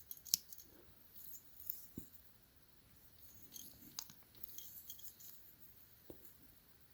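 Faint, scattered small clicks of a 13-in-1 Urban Gear multi-tool being handled as its folding tools are opened out.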